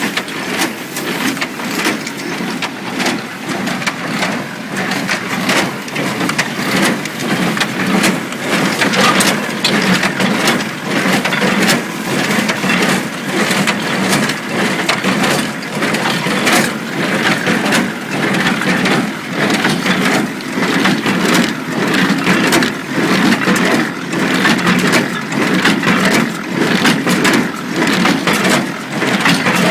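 International Harvester 47 square baler running under load, its plunger compressing and shearing hay with a steady clatter of sharp knocks and a rhythmic surge on each stroke.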